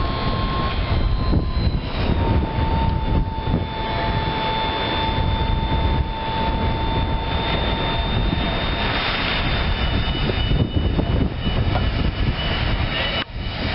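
Kawasaki 25 HP gas engine of a Hustler Flip-Up zero-turn mower running steadily, with a thin high whine over it that dips slightly in pitch about two seconds in and fades after about eight seconds.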